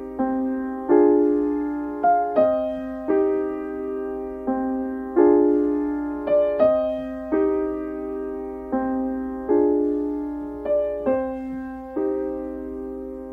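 Slow piano music: chords struck about once a second, sometimes two in quick succession, each left to ring and fade.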